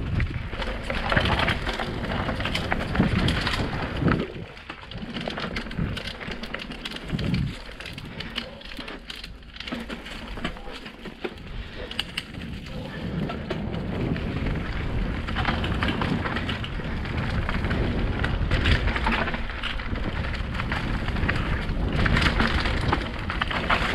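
Mountain bike descending a dirt singletrack: tyres crunching over dirt, leaves and roots, with the bike clattering and rattling over bumps and wind rumbling on the camera microphone. The noise eases for several seconds in the middle.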